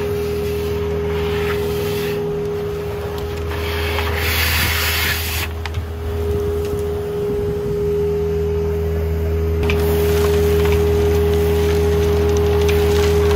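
Hydrovac trailer's 4310 vacuum blower running steadily with a whine over a low drone, while its suction tube pulls wet soil and gravel out of a hole with a rushing hiss and rattle of debris. The rush surges briefly about four seconds in and grows louder and fuller near the end.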